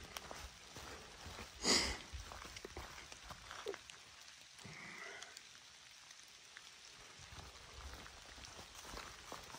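Light rain on a wet, leaf-covered trail: scattered small ticks of drops and footfalls crunching in soggy leaf litter over a faint hiss. There is one brief, louder rustle about two seconds in.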